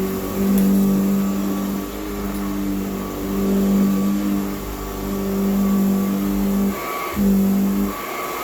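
Hoover Model 28 upright vacuum cleaner running with a steady pitched hum, its loudness swelling and dipping as it works, with a brief dip about seven seconds in. The motor's brushes are noisier than normal because of a worn commutator that is no longer flat.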